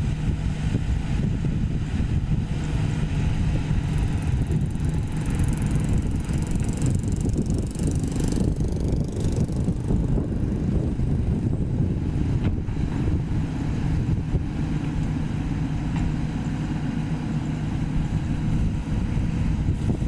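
Diesel engine of a Sany SY215C hydraulic excavator running steadily at working speed, with a faint hiss in the middle.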